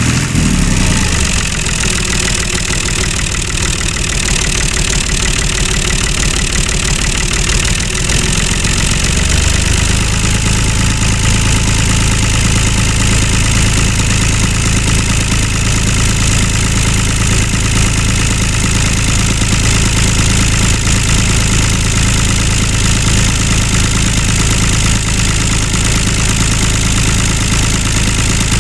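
Tractor engine running steadily. About ten seconds in it settles into an even run with a constant low hum.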